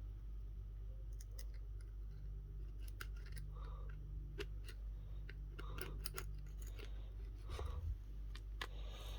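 Irregular small clicks and short scrapes of hand tools working on a phone, over a steady low hum.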